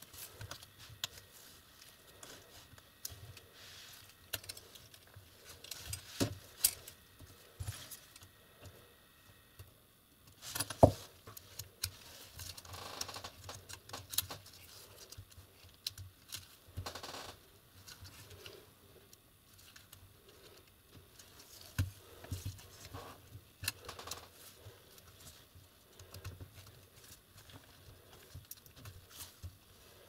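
Handling noise from gloved hands working a laptop's motherboard and plastic case: scattered small clicks, taps and rustles at irregular intervals, the sharpest click about eleven seconds in.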